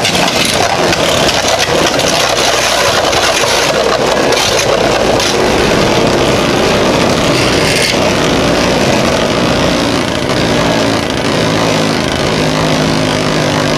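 Two Beyblade Burst spinning tops with 3D-printed metal upgrades whirring as they spin and skid across a plastic stadium floor, a steady grinding whir.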